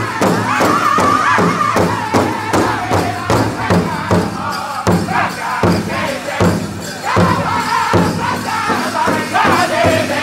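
Powwow drum group: several singers striking a large hide-covered powwow drum in unison with padded beaters, a steady beat of about three strokes a second, while they sing together over it.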